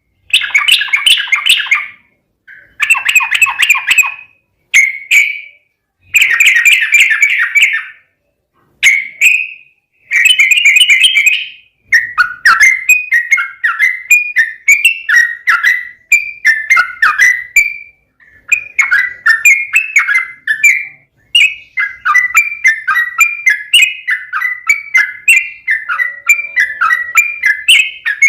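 Yellow-vented bulbul (trucukan) singing loud, bubbly chattering phrases. For about the first twelve seconds they come in short bursts with brief silences between them; after that they run together into a quick, continuous stream of notes.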